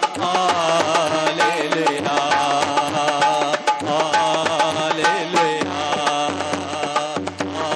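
South Asian devotional worship music: a wavering melodic lead over a steady hand-drum rhythm.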